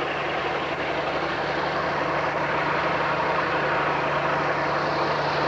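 Bulldozer engine running steadily with a constant low hum, growing louder over the first couple of seconds as the machine draws near, then holding steady.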